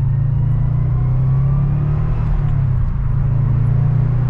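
Subaru WRX turbocharged flat-four engine running under load while driving, with a faint rising whine in the first two seconds. The engine note dips briefly about two and a half seconds in, then steadies again.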